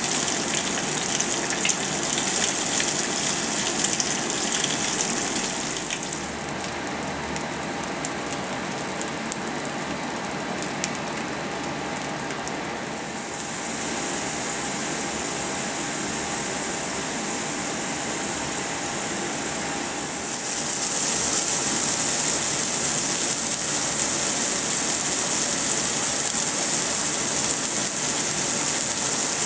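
Food sizzling in oil in a frying pan: bacon strips, fries and a raw hamburger patty in turn, a steady hiss that shifts in loudness at each change of food. Crackling pops are scattered through the middle stretch, and the last stretch is the loudest.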